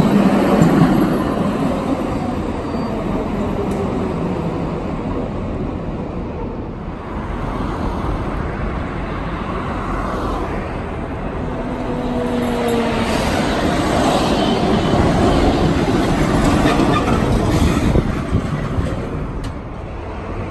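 Orange articulated GTT 2800-series trams running on street rails: one rumbles past close by, then another approaches and rolls in, its wheels and running gear growing louder. Brief whines come about twelve seconds in, mixed with street traffic noise.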